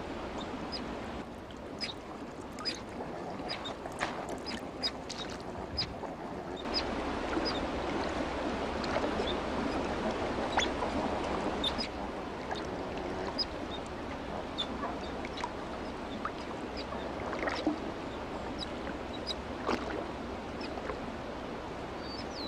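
River otter swimming and splashing through shallow water, a steady sloshing that grows louder about seven seconds in, with many short high chirps and squeaks over it.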